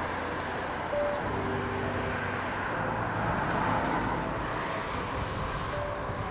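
A passing motor cruiser's engine running steadily with a low hum, under faint background music with a few short held notes at changing pitches.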